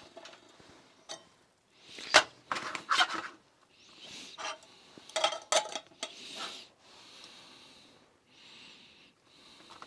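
Camp cooking gear and a food pouch being handled: a run of sharp clattering knocks and rustling through the first two thirds, then softer rustling.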